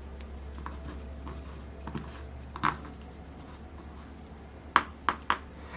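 Scattered light clicks and clinks of small screws and metal engine parts being picked up and set down, the sharpest three coming close together near the end. A low steady hum runs underneath.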